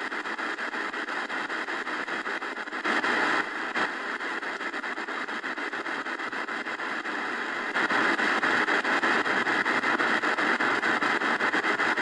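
Shortwave static hissing from the XHDATA D-901 portable radio's speaker as it is tuned slowly across a shortwave band. The noise grows louder briefly about three seconds in, and again from about eight seconds on.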